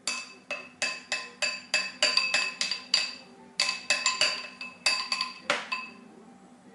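A spoon striking a bowl over and over: about twenty sharp clinks, each with a short ringing tone, in quick uneven runs that stop about six seconds in.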